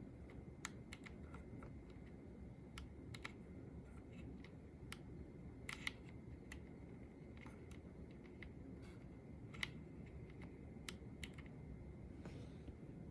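Faint, irregular key clicks from an Anne Pro II keyboard, with the Fn2 key giving a click when pressed. The presses come singly at uneven gaps, with one or two sharper clicks standing out.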